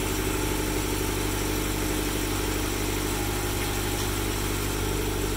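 Subaru BRZ's newly installed flat-four engine idling steadily on its first run after the swap.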